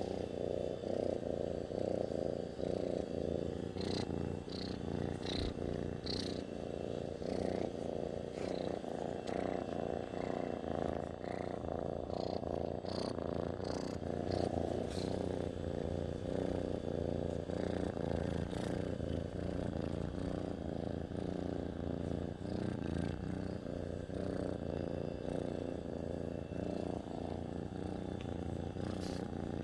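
Domestic cat purring steadily, a low even rumble.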